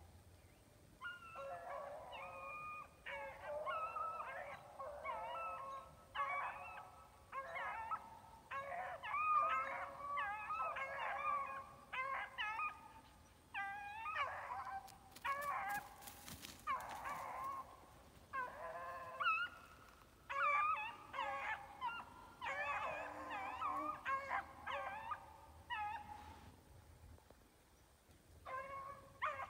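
Animal calls: many short, wavering, pitched cries in irregular runs, some overlapping, with a brief noisy patch about halfway through.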